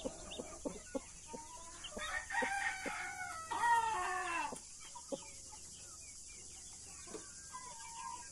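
Hen clucking in short, evenly repeated low notes, with a rooster crowing once, loud and drawn out, from about two to four and a half seconds in.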